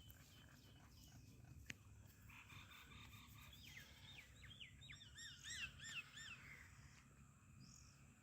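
Faint bird calls: a run of quick, repeated rising-and-falling chirps lasting about four seconds, over a quiet outdoor background.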